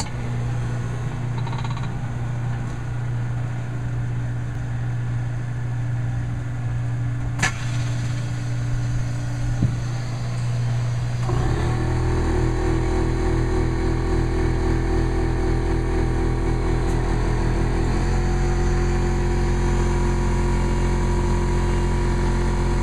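Mold-A-Rama vending machine running through a molding cycle with a steady mechanical hum. There is a sharp click about seven seconds in. About eleven seconds in, a louder machine sound starts with a fast pulsing rhythm, and it changes pitch again around eighteen seconds in.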